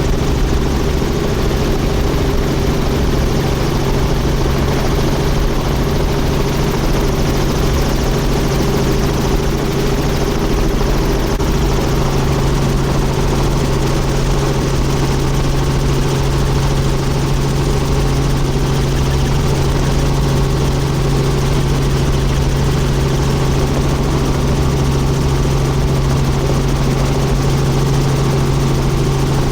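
Helicopter engine and rotor running with a steady, unchanging drone.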